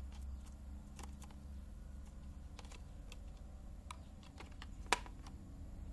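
Light, scattered clicks and taps of a laptop hard drive being handled and pulled out of its bay, with one sharper click about five seconds in.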